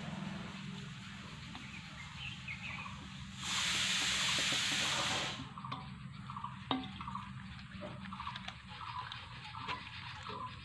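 A steady rushing hiss, like gushing water, lasts about two seconds near the middle and then stops sharply. Around it are small handling clicks from a steel plate and bowl as fish is rubbed with turmeric, one sharp clink a little after the middle, and faint repeated chirps.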